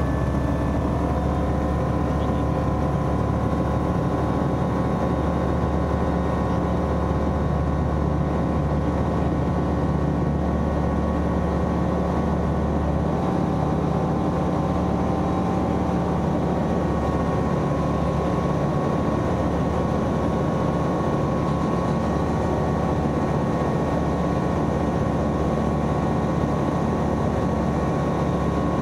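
Single-propeller light aircraft's engine and propeller running at takeoff power, heard from inside the cockpit as a loud, steady drone through the takeoff roll and climb-out.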